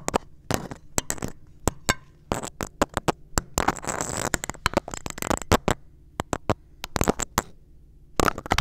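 Crisp cracking and crunching as baked cookies and a small gingerbread house are broken apart with a small metal utensil: a run of sharp cracks, with a denser stretch of crumbling about halfway through.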